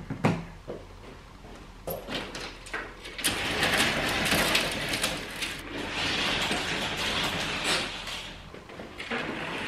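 Curtains being pulled open along a ceiling track: a few light clicks, then a long sliding rush of runners and fabric from about three seconds in until near the end.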